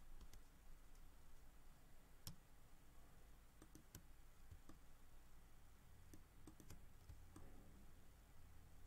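Faint, scattered computer mouse clicks, a dozen or so at irregular intervals, over near-silent room tone. A low hum strengthens from about two-thirds of the way in.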